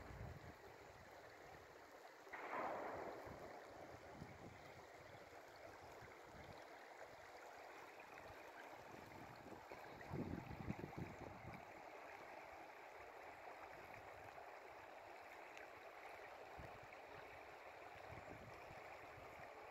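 Shallow river running over rocks: a faint, steady rush of water. A brief louder swish comes about two seconds in, and a few low bumps about halfway through.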